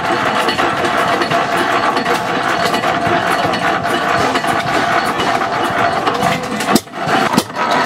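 Economy 5 HP single-cylinder antique gas engine running at slow speed, its flywheels turning. Near the end the sound briefly dips, set off by two sharp clicks.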